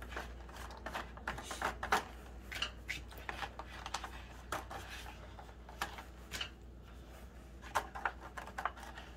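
Thin clear plastic bottles and a salad container crinkling and clicking as a painted plastic sculpture is handled: scattered irregular ticks and rustles, over a steady low hum.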